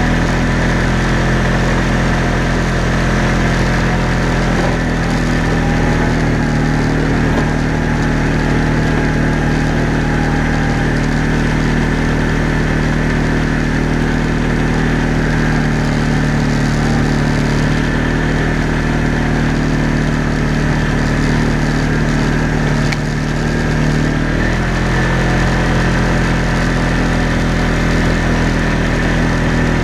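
Engine of an off-road vehicle running steadily at low speed, with a short dip and shift in its note about 24 seconds in.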